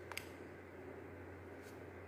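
Plastic housing of a handheld mini fan handled in the hands: one sharp click shortly after the start and a fainter click near the end, over a low steady hum.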